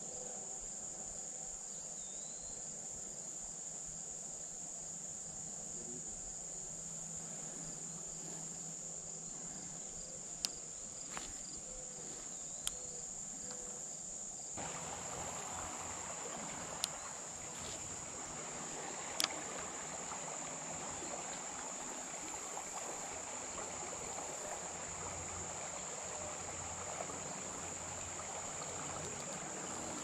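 Steady high-pitched insect chorus. A few sharp clicks fall around the middle, and a soft rushing hiss joins about halfway.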